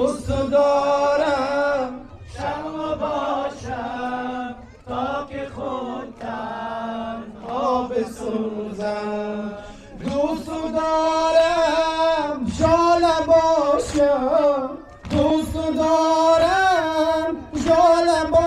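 Men's voices chanting a Persian noha, a Shia mourning lament for Muharram, in long sung phrases with short breaks between them.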